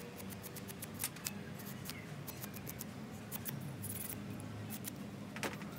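Small, sharp clicks and taps of hand tools handling phone parts at a workbench, irregular and quick, over a steady low hum.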